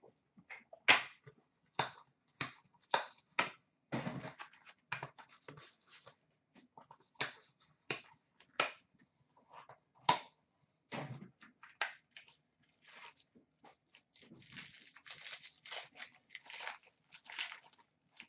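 Hockey cards and their pack wrappers being handled and opened: scattered sharp clicks and short rustles, with a longer run of crinkling and tearing from about fourteen seconds in.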